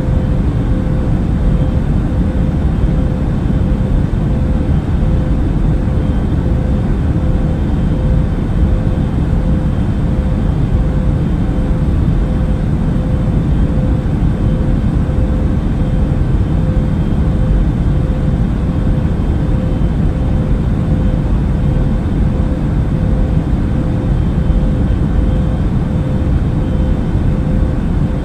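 Airplane noise heard during a flight: a constant low rumbling drone of engines and rushing air, with a steady mid-pitched tone running through it.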